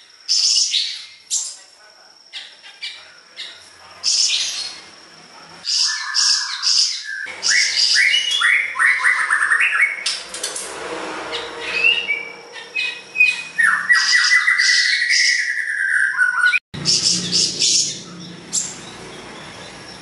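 Caged siri-siri songbird singing at length: a fast run of sharp chirps, harsh chattering notes and whistled gliding phrases. The song breaks off for an instant near the end.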